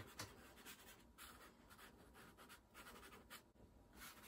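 Faint scratching of a pastel stick on paper: a quick, irregular series of short strokes laying in grass.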